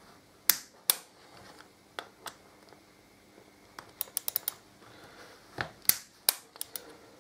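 Click-type torque wrench being worked on a bolt of a chrome Harley-Davidson rear brake caliper: scattered sharp metallic clicks, with a quick run of ratchet clicks about four seconds in.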